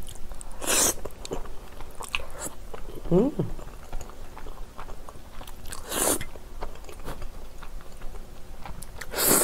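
Close-up eating sounds of saucy black bean instant noodles: three loud slurps as noodles are sucked in, about a second in, around six seconds and near the end, with wet chewing clicks between and a brief squeaky sound about three seconds in.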